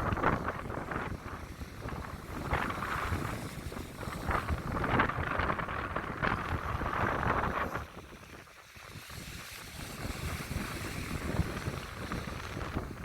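Sea waves surging and washing onto a beach in a series of swells, with wind buffeting the microphone; the surf eases briefly about two-thirds of the way through before building again.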